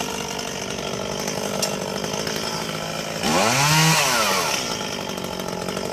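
Chainsaw idling steadily, revved up once about three seconds in, its pitch rising and falling back to idle.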